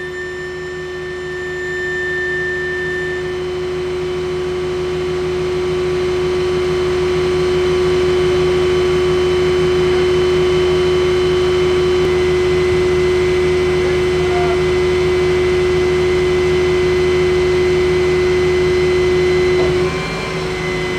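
Power pack of a large knuckleboom crane running steadily, a whine over a low hum. It grows louder over the first several seconds and drops slightly about a second before the end.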